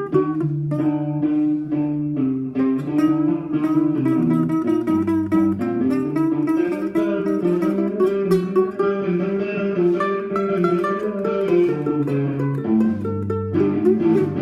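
Plucked-string music on a guitar: a run of quick picked notes over held lower notes, without pause.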